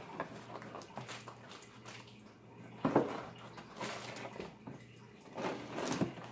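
Handling of a large cardboard box: a sharp knock about three seconds in, and a short scraping rustle of fingers on the box edge near the end.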